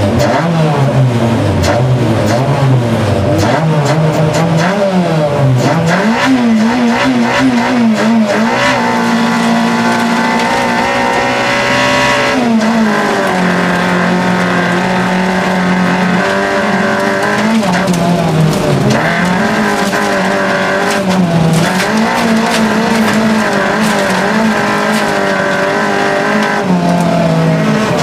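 Race-prepared VW Golf GTI 2.0-litre eight-valve four-cylinder engine heard from inside the cabin, revving hard through the gears. The pitch climbs, holds high for several seconds at a time, then drops briefly at each shift or lift.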